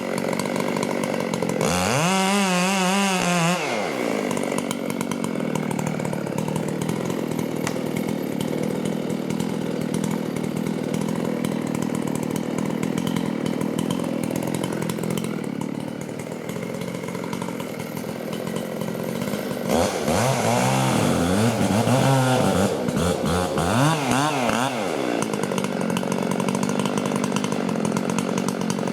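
Chainsaw running throughout, revved up about two seconds in, then given several quick revs up and down around twenty seconds in.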